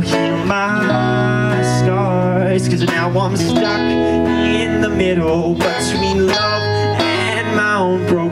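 Music led by guitar, playing steadily without a break.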